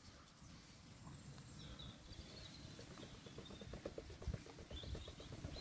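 Faint bird chirps over a low outdoor rumble, with a quick soft pattering through the second half as water is swirled in a plastic gold pan.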